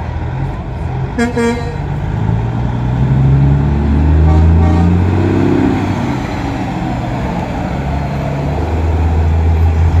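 Heavy diesel trucks driving past in a convoy, their engines rumbling and swelling to loudest about four seconds in as one passes close, with a short horn blast about a second in.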